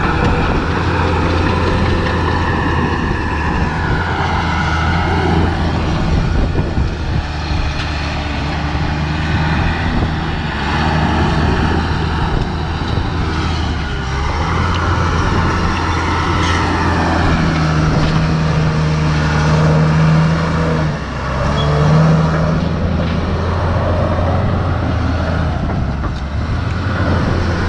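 Bulldozer's diesel engine running steadily as the machine works the ground, getting louder and stronger for a few seconds a little past the middle as it takes more load.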